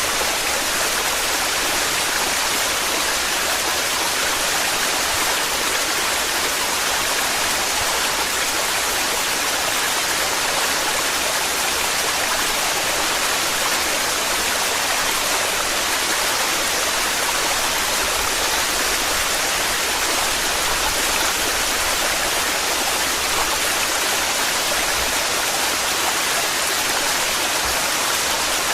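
Waterfall in torrent: a steady, unbroken rush of falling water.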